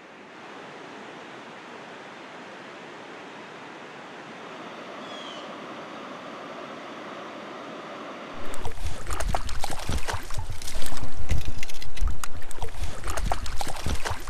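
Mountain creek water flowing steadily over rocks. About eight seconds in it turns abruptly much louder: rushing, splashing water right at the microphone, with knocks and rumble from the camera being handled.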